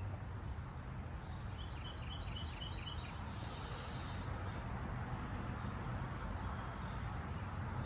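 A bird sings a rapid series of short, high chirps lasting about a second and a half, a couple of seconds in, over a steady low outdoor background hum.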